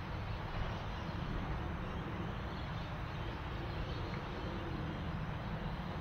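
Steady outdoor background noise with a low rumble underneath, unchanging throughout.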